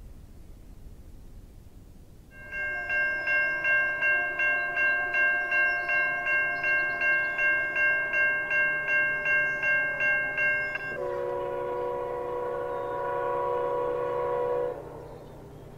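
An Amtrak P32AC-DM diesel locomotive sounds its chime air horn with a bell ringing about two and a half times a second as it approaches at speed. Partway through, the bell stops and the horn drops in pitch as the locomotive passes, then the horn cuts off near the end.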